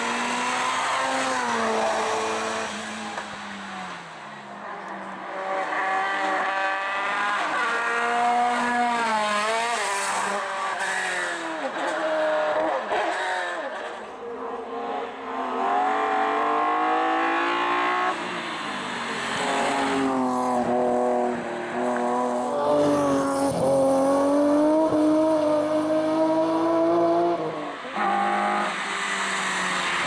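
Hill climb race car engines revving hard, the pitch climbing and dropping again and again through gear changes as several cars pass in turn.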